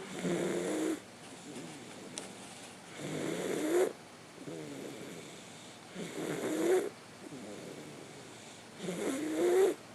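A young boy snoring in his sleep: four snores about three seconds apart, each about a second long, growing louder and rising in pitch toward its end before cutting off sharply.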